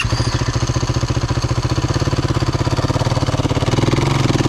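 Yamaha WR450F single-cylinder four-stroke dirt bike engine running at idle with an even, rapid pulse, freshly restarted after a stall; it swells a little near the end as the rider moves off.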